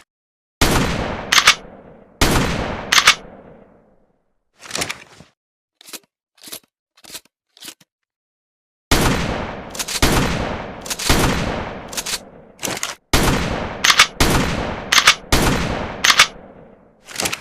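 Pump-action shotgun firing, each echoing blast followed by the sharp clack of the pump being racked. Two shots come near the start. After a pause holding only a few short metallic clicks, a rapid string of shots follows, about one a second.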